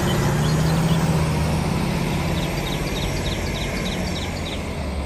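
Heavy diesel engine running at a steady low hum. A quick run of short, high chirps sounds over it near the middle.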